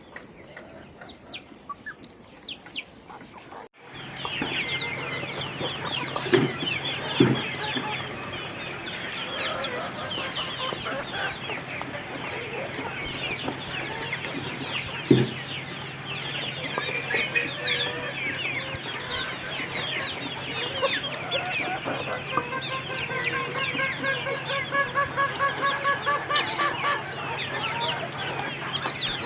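A flock of young chicks peeping: a few scattered cheeps at first, then, after an abrupt cut about four seconds in, a dense, continuous chorus of overlapping falling peeps over a steady low hum, with a few low thumps.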